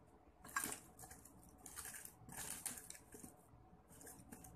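Faint crinkling of chocolate wrappers handled by hand, in short irregular bursts several times.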